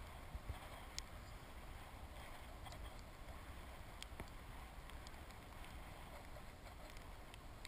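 Wind buffeting the action camera's microphone: a low, steady rumble with a few faint clicks.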